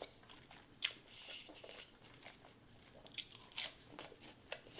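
Close-miked chewing: soft, wet mouth clicks and smacks as a mouthful of food is chewed, with a sharper click about a second in and a run of clicks near the end.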